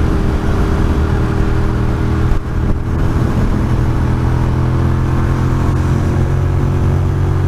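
Ducati Monster's V-twin engine running steadily at highway speed, with a brief dip in loudness about two and a half seconds in.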